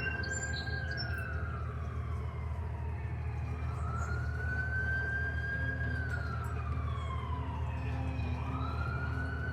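Emergency vehicle siren wailing, its pitch rising, holding and slowly falling again every four to five seconds, over a steady low hum.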